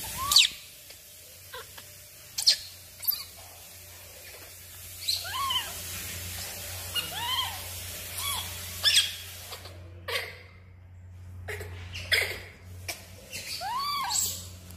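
Baby macaque giving short cooing calls, about six of them, each rising and then falling in pitch, with sharp clicks and taps in between.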